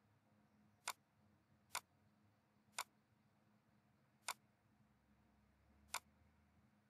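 Five sharp computer mouse clicks, unevenly spaced, over faint room hiss.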